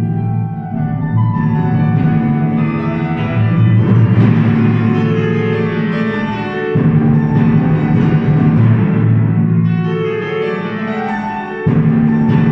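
Timpani and piano playing together: the timpani struck with mallets in low, ringing notes over piano accompaniment, with strong new strokes about seven seconds in and again near the end.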